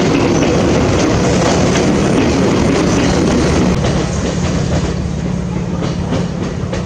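Chichibu Railway electric train running past, its wheels clattering over the rails with a steady low hum underneath. The sound stays loud for about four seconds, then gradually fades as the train draws away.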